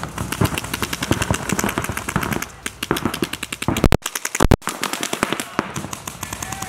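Paintball markers firing rapid strings of shots, many pops a second. Two louder, sharper cracks come about four seconds in.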